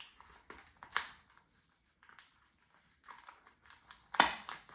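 A small product package being opened by hand: scattered clicks and crinkles of packaging, with a louder rustling burst about four seconds in.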